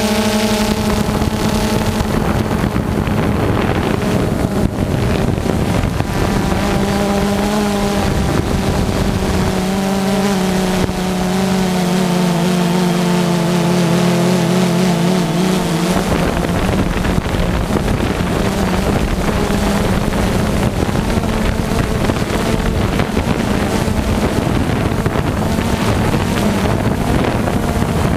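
Multirotor drone's motors and propellers whining steadily over wind rush on its onboard microphone, the pitch shifting and wobbling as the motors change speed. About halfway through the motor tones grow fainter and the wind noise takes over.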